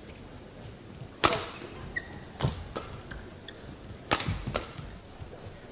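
Badminton rally: rackets striking the shuttlecock in a series of sharp cracks about a second apart, two of them in quick succession near the end.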